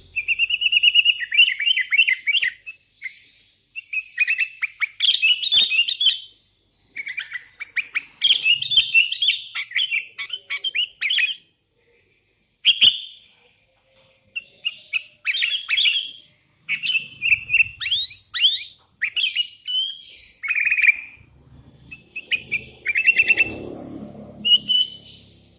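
Sooty-headed bulbul singing energetically: repeated bouts of quick, bubbly chattering phrases separated by short pauses. A low rumbling noise sits under the song near the end.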